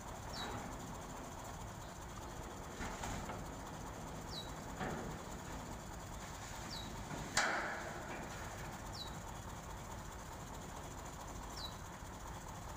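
A bird's short, high, falling chirp repeats every two seconds or so over a low outdoor hum. About seven seconds in comes a single sharp metallic clank, as the crane's chain sling takes up the weight of the steel pipes.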